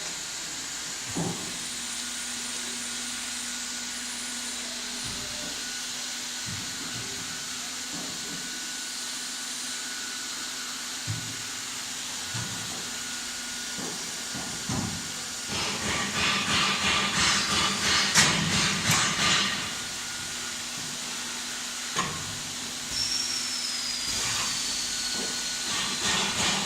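Steady mechanical hiss with a faint hum, broken two-thirds of the way through, and again near the end, by a fast rhythmic rattle of about four or five beats a second.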